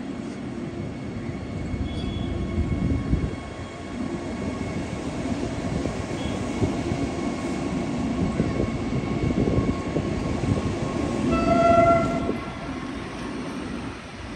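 Vande Bharat electric multiple-unit train running past, a steady rumble of its wheels on the rails. Near the end a short horn note sounds, the loudest moment.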